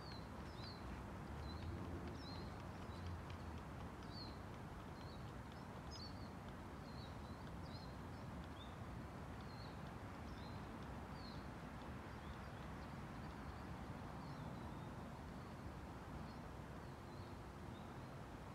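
Small birds chirping, short high calls about one or two a second, over a steady low outdoor background rumble.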